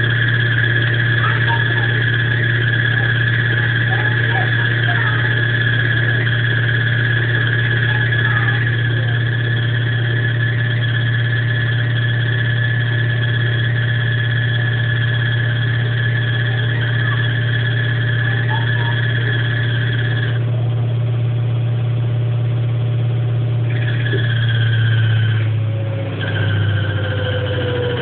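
Electrolux washing machine in its spin cycle, running with a steady low hum and a steady high-pitched squeal over it, the abnormal noise it makes when spinning. The squeal cuts out about two-thirds of the way through, comes back briefly, drops out again and returns near the end.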